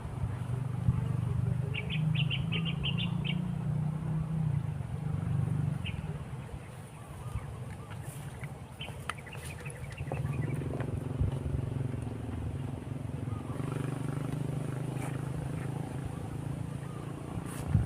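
Low, steady engine hum from a passing motor, fading out about a third of the way in and coming back from just past halfway, with short rapid bird trills over it twice.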